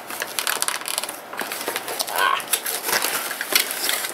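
Plastic toy packaging being handled and pulled at by hand: irregular crinkling, rustling and sharp clicks as a toy is worked free of its taped-on fastenings.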